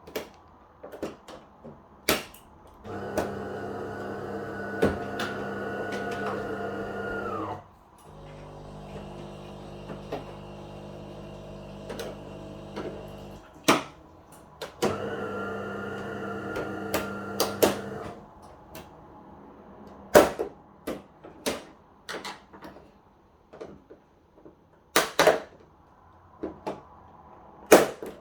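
Plastic retaining clips of a TV's back cover snapping loose one after another as the cover is pried off with a knife, with knocks of the plastic panel. Three stretches of a steady machine hum, each a few seconds long, run underneath; the first one drops in pitch as it stops.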